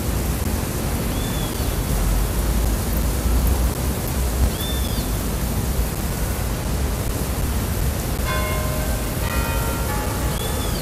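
Steady open-air city square ambience with wind rumbling on a phone microphone. A few short high chirps come through, and near the end a brief pitched tone sounds twice.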